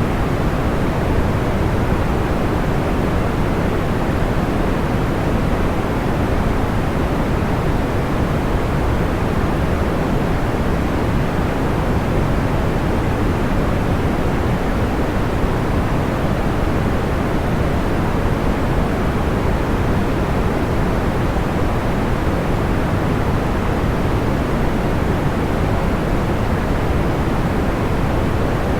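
Steady, soft white noise for sleep, heavier in the low end and dull at the top. It stays even throughout, with no crackles or pops standing out.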